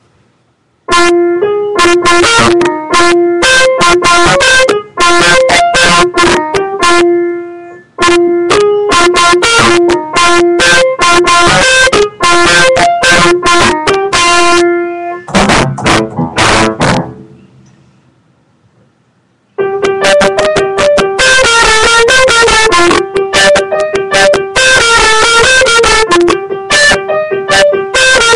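A piano played loudly, a short melody picked out over a repeated middle note. It breaks off for about two seconds just past the middle, then starts again. The recording is badly overloaded.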